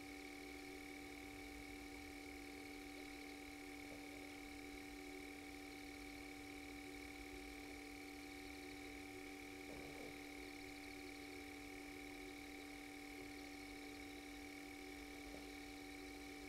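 Faint, steady electrical hum and whine at several fixed pitches over low hiss, unchanging throughout.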